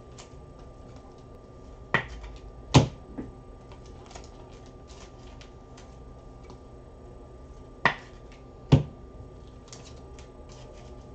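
Faint clicking of a computer keyboard being typed on, broken by two pairs of sharp knocks, each pair under a second apart, about six seconds between the pairs; the knocks are the loudest sounds.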